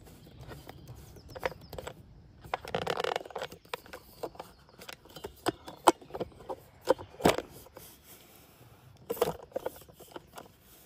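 Handling noise close to the microphone as something is fiddled with and adjusted: irregular clicks and taps, with a longer scraping rustle about three seconds in and another cluster of clicks near the end.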